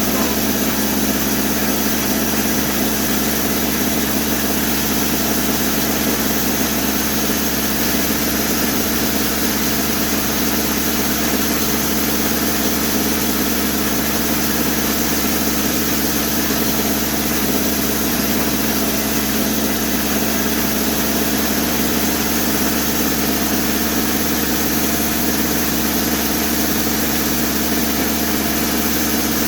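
Homemade sawmill running steadily, its engine holding an even speed with no change in level; it is running slower than normal.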